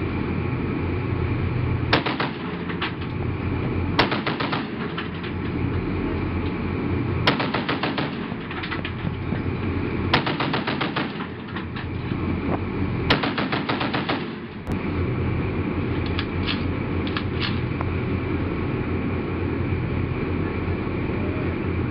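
Twin-mounted M2 Browning .50-caliber (12.7 mm) machine guns firing about six short bursts of rapid shots a few seconds apart, over a steady low rumble.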